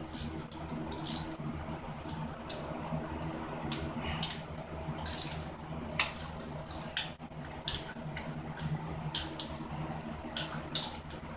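Wrench and bolts clinking against the Honda XR50's metal exhaust header and frame as the 10 mm exhaust bolts are undone: scattered, uneven metallic clinks over a steady low hum.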